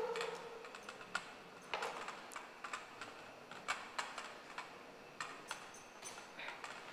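Light, irregular clicks and clinks of kitchen utensils against bowls and dishes as food is prepared by hand.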